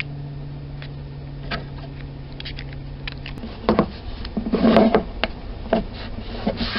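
Small clicks and taps of a hand handling an action camera and pressing its buttons, with a few short rubbing rustles; a low steady hum stops about halfway through.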